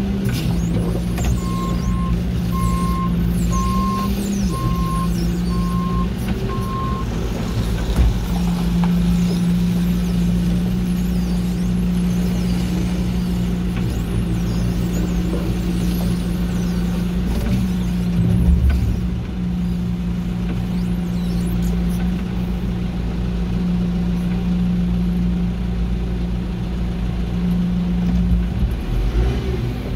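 Telehandler's diesel engine running steadily, its note rising briefly a couple of times. Near the start its reversing alarm beeps six times, about once a second.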